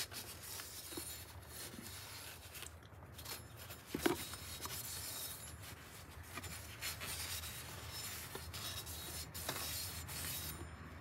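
Cloth rag rubbing and wiping inside an empty engine oil filter housing, a faint continuous scrubbing with a light knock about four seconds in.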